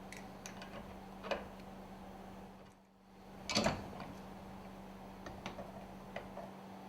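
Light clicks and taps of small metal parts being handled as a lubricator valve is put back together, the two sharpest about a second in and again a little past halfway. A steady low hum runs underneath.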